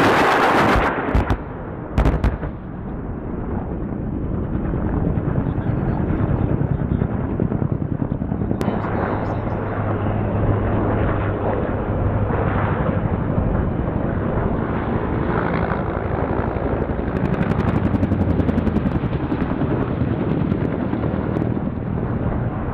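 AH-1Z Viper attack helicopter in flight, its rotor beating rapidly, mixed with the rattle of gunfire. A loud blast of noise in the first second is followed by two sharp cracks.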